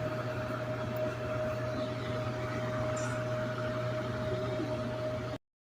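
A steady mechanical hum: one constant mid-pitched tone over a low drone and a noise haze, cutting off abruptly near the end.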